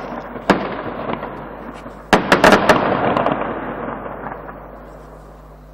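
Fireworks display: aerial shells bursting with sharp bangs, one about half a second in and a quick cluster of several around two seconds in, each followed by a rolling echo that dies away near the end.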